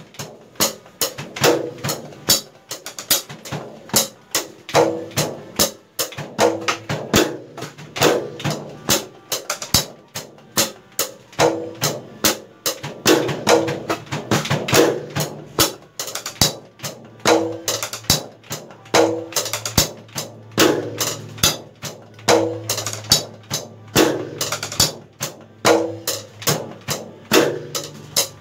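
Acoustic noise of a DIY electronic drum kit played with sticks, heard without its sound module: a steady groove of sharp stick hits on the drum and cymbal pads, with dull thuds under some strokes.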